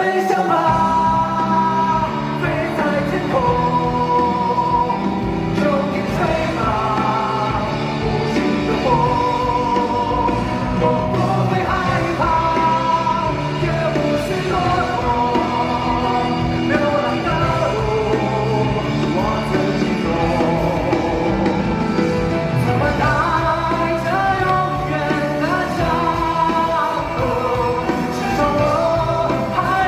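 Pop-rock band music: a melodic lead line over a steady bass and drum accompaniment, with no break.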